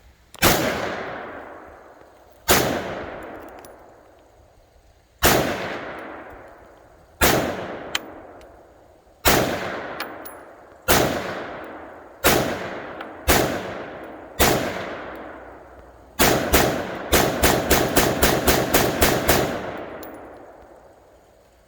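AR-15 rifle with a 16-inch barrel firing outdoors, each shot trailing off in a long echo. About nine shots come one to three seconds apart, then a fast string of about a dozen shots in some three seconds near the end.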